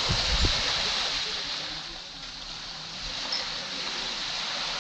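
Caribbean sea waves breaking and washing up a sandy beach close by, the rush swelling and ebbing, with a few low thumps near the start.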